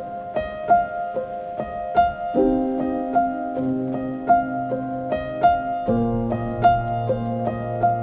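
Background music: a quick repeating pattern of short notes over held chords that change every few seconds.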